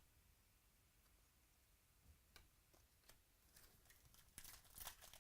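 Quiet handling of trading cards and their packs: faint scattered clicks and rustles that start about two seconds in and grow busier and louder near the end.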